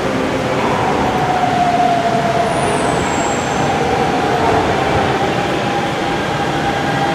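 Hanshin electric train approaching a terminal platform through the tunnel: a steady whine that slowly falls in pitch as the train slows, over a continuous rumble.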